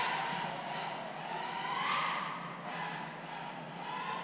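Small 100 mm FPV quadcopter's brushless motors whining in flight, the pitch rising and falling with the throttle and swelling louder about two seconds in.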